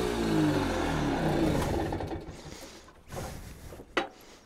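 Simson moped's 50 cc two-stroke engine winding down in pitch and stopping about two seconds in. A few light clicks and knocks follow, the sharpest near the end.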